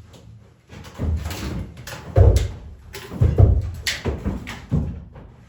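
Several heavy thumps and knocks at irregular intervals, with one sharper crack about four seconds in.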